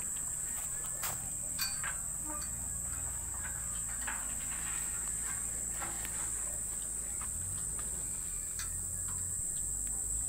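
Insects droning steadily at a high pitch, with scattered light clicks and a low rumble underneath.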